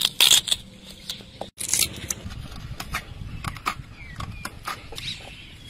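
A knife cutting and scraping into a raw sweet potato to hollow it out: a run of crisp, irregular scrapes and cracks of the firm flesh, loudest in the first half second.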